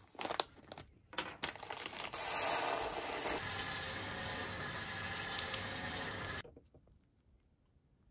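Green coffee beans crackling and clicking in a plastic bag. Then a homemade coffee roaster runs with a steady noise: a perforated stainless drum, turned through 3D-printed gears, rotates over a gas burner flame with the beans tumbling inside. The sound cuts off suddenly about two-thirds of the way through.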